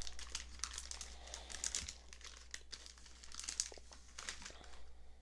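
Plastic wrapper of a trading-card rack pack crinkling as it is torn open and handled by hand, a quick run of small crackles that thins out toward the end.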